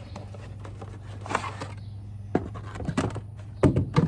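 Plastic clicks and knocks of hands unfastening the clips on a 2008 Ford Expedition's engine air filter housing: a handful of sharp taps, the loudest near the end, over a steady low hum.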